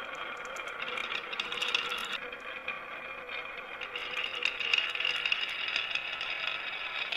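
Marbles rolling and clattering down a wooden marble-run track: a continuous rolling rattle with many small clicks.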